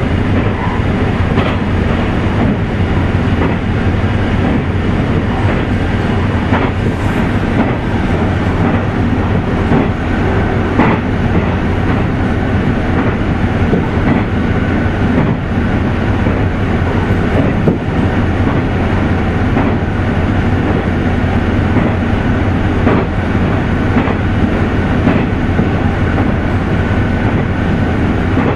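Inside an Ibara Railway diesel railcar running along the line: a steady low engine drone and wheel-on-rail rumble, with a scattering of short clicks from the wheels and track, two of them sharper.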